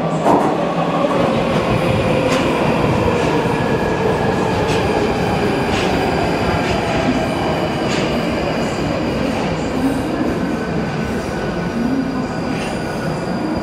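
London Underground tube train running into the platform and braking. Its motor whine falls in pitch under a dense rumble of wheels on rail, with a high steady wheel squeal.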